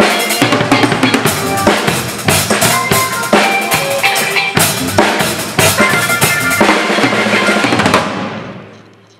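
Drum kit played with sticks (kick drum, snare and cymbals) in a steady groove over a backing track with pitched instrument notes. About eight seconds in the playing stops and the last of the sound rings away.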